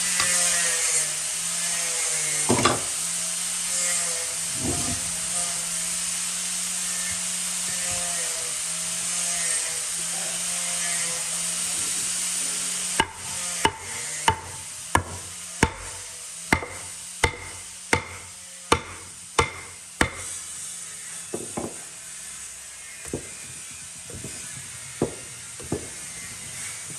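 A power tool runs steadily with a hum and hiss, then stops about halfway through. About a dozen sharp, evenly spaced hammer blows on wood follow, roughly one every 0.7 seconds, then a few fainter knocks near the end.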